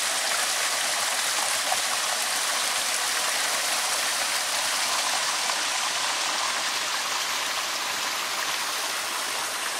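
A small stream of water pouring steadily out from under an earth bank and splashing down a short drop: an even, close rush of water that eases slightly near the end.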